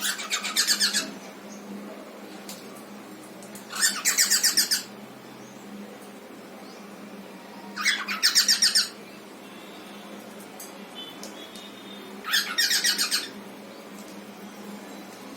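Cockatiel calling: four bouts of quick, repeated chattering notes, about a second each, spaced about four seconds apart.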